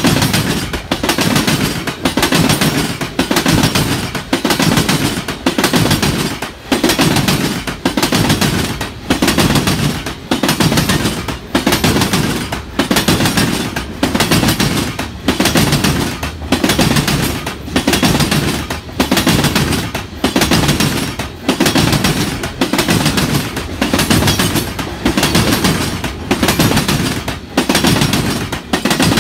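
Freight cars (covered hoppers) rolling past close by, their steel wheels clacking over rail joints in a steady rhythm of roughly one clack a second, over a continuous rumble of wheels on rail.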